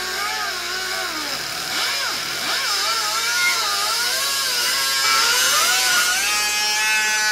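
Handheld cut-off wheel grinding through the sheet-steel gas tank of a 1962 Allis-Chalmers B-1 garden tractor to cut out a rust spot. Its whine wavers up and down in pitch as the wheel bites into the metal, holding steadier and higher near the end.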